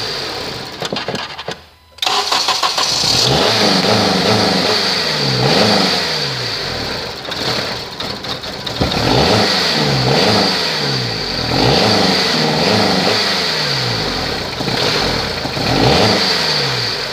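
2009 Honda CR-V's four-cylinder i-VTEC engine running unevenly, its speed rising and falling over and over. It nearly drops out about two seconds in and comes back. This is an engine that starts but will not stay running.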